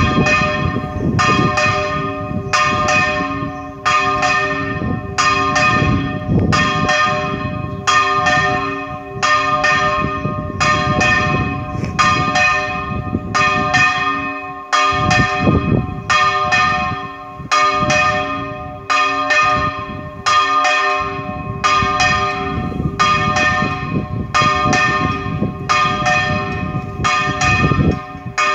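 A single church bell rung in a repique, struck in a fast, steady rhythm of about three strokes every two seconds, its tone ringing on between strokes.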